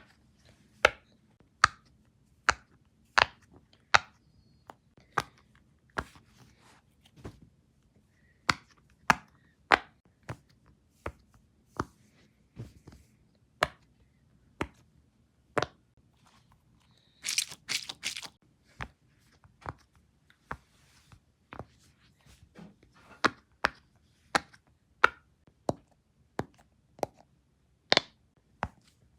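Fidget toys being handled: an irregular string of sharp clicks and snaps, about one or two a second, with a brief burst of rapid rattling clicks about seventeen seconds in.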